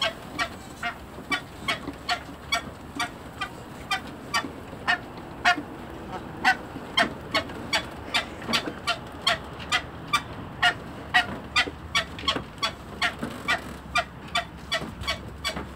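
Domestic ducks giving short, quick honking quacks, about three a second, steady and unbroken while they walk.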